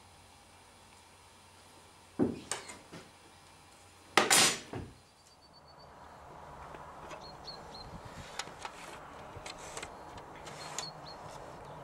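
A few sharp knocks, then a loud short clatter, as a metal straightedge is handled on a workbench. After that, a steady outdoor background with light taps and a few faint high chirps.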